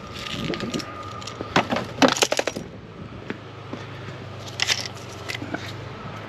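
Metallic clinks and rattles of small metal parts or tools being handled, with a quick clattering run about two seconds in and another clink near the end, over a steady low hum.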